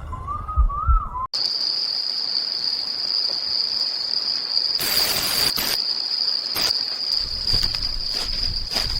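Insects trilling steadily on one high note, with a brief rush of noise about five seconds in and a few scattered clicks near the end. Before that, a wavering tone over low thumps cuts off suddenly about a second in.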